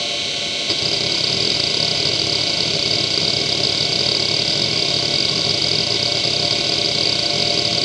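Seagate ST9145AG 2.5-inch IDE hard drive running and seeking rapidly during a random-access benchmark: a dense, continuous chatter of head seeks with a high whine. It starts with a small click about a second in and continues until the very end.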